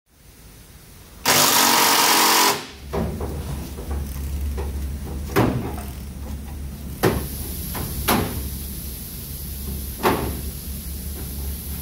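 A loud hissing burst of about a second, then a steady low hum with a sharp knock every one to three seconds: hand tools striking and scraping at the bed floor of a Ford F250 pickup.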